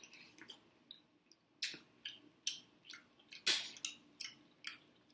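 Close-miked wet chewing and lip-smacking while eating sauce-coated boiled mussels: irregular sharp smacks, the loudest about three and a half seconds in.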